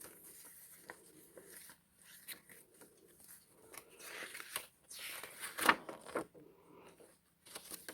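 Paper and cardstock pages of a handmade junk journal being handled and turned: scattered rustling and crinkling, with the loudest flap a little past the middle.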